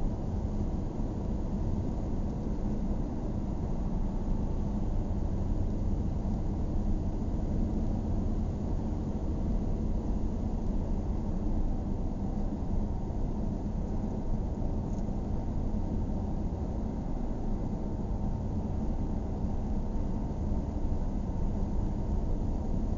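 A car driving at low speed: a steady rumble of engine and tyres on the road, heard from inside the car.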